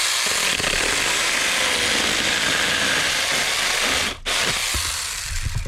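Saker battery-powered mini chainsaw running and cutting through a small branch, its chain rattling. The motor stops for a moment about four seconds in, then runs again briefly.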